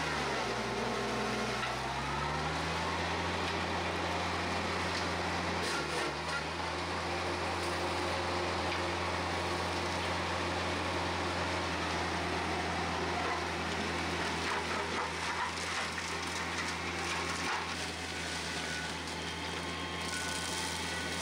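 TYM T474 tractor's diesel engine running steadily at working revs, with a noisy mechanical rush over it from the PTO-driven forestry mulcher. The engine pitch sags at the start and climbs back about two seconds in, as if pulled down briefly under load.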